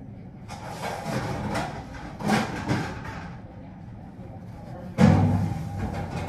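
Crinkly rustling of a tie-on surgical mask and disposable gown as the mask strings are knotted behind the head, over a steady low hum. A single loud thump about five seconds in.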